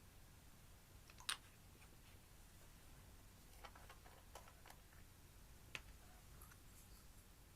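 Slime making soft, sparse clicks and pops as it is pressed and stretched: one sharper click about a second in, a small cluster a few seconds later and another near the end, over near silence.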